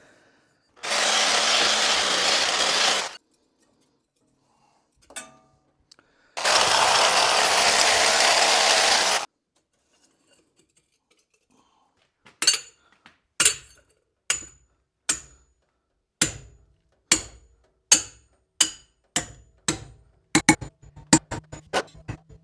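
A motor-driven power tool runs twice, for about two and then three seconds. This is followed by a series of hammer blows on metal pipe, each with a short metallic ring, at first about one a second and then faster near the end.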